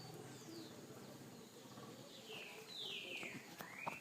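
Faint whistled bird calls: two falling whistles about two seconds in, followed by a rising one near the end.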